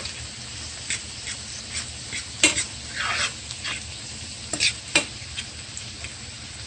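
Minced garlic and onions sizzling as they sauté in melted butter and oil in a pan, with a spoon scraping and tapping against the pan now and then as it is stirred constantly; the sharpest knocks come about two and a half and five seconds in.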